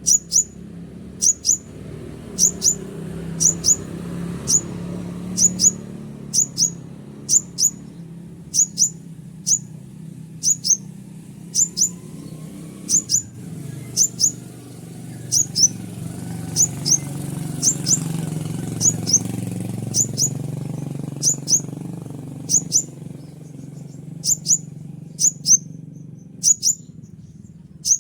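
Konin sunbird calling with sharp, high chirps repeated about every half second to second, often in pairs, over a low steady background rumble.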